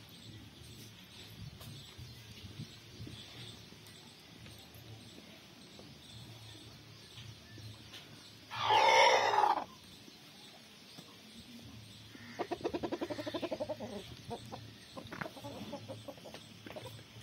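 Rooster crowing once, a loud call of about a second about halfway through. A few seconds later comes a shorter, rapidly pulsing animal call, with a few small scattered sounds near the end.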